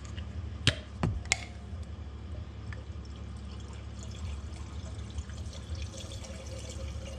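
Engine flush being poured from its bottle into an open engine oil filler, a trickle of liquid, with a few sharp knocks about a second in.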